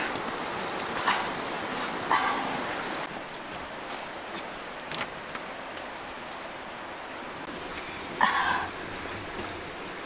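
Dog giving a few short barks: one about a second in, another about two seconds in, and a louder one near the end.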